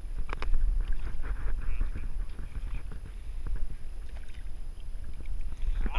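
Water splashing and sloshing as a hand reaches into shallow water to grab a hooked largemouth bass at the surface, with a few sharper splashes about half a second in, over a steady low rumble.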